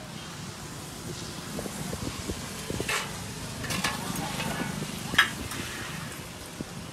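Steady rain falling, with three sharp clinks of utensils: about three seconds in, near four seconds, and the loudest a little after five seconds.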